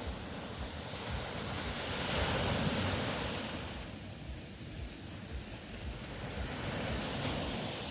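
Ocean waves washing in, one wave swelling to a peak two or three seconds in and easing off, then another building near the end.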